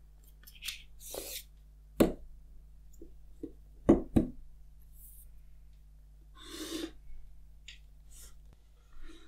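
An iPhone 11 Pro Max and its cardboard box being handled on a table: a few sharp taps and knocks as the phone and box are set down, the loudest two close together about four seconds in, with soft rustling and sliding of the box and its paper insert in between.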